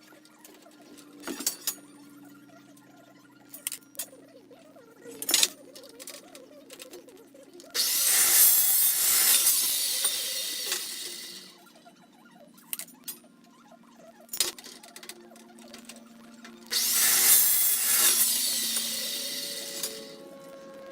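Carbide-tipped cold cut saw cutting through steel square tubing twice, each cut lasting about four seconds and fading as the blade finishes. Between the cuts come a few sharp metal knocks as the tubing is handled.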